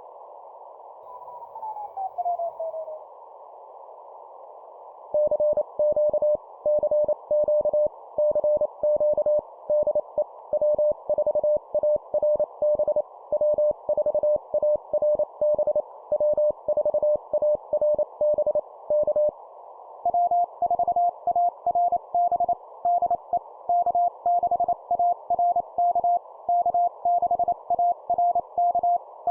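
Morse code (CW) at 25 words per minute over a narrow band of receiver hiss. After a tone gliding down in pitch, one station keys a CQ call in steady on-off beeps, then about two-thirds of the way through a second station answers at a slightly higher pitch.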